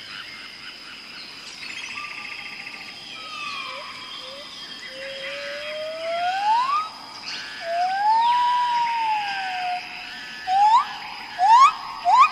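Jungle bird calls over a steady high insect drone. Long whistled glides, one slowly rising and one rising then falling in an arch, are followed near the end by several quick rising whistles.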